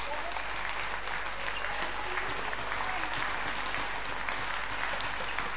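Arena crowd clapping and cheering steadily during a badminton rally, with several sharp racket strikes on the shuttlecock.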